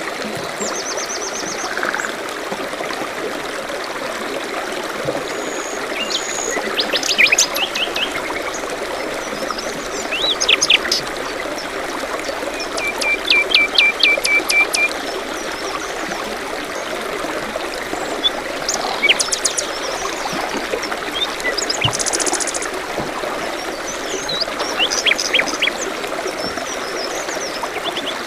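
A small stream running steadily, with songbirds calling and trilling over it: several short phrases of rapid chirps and a few clear whistles.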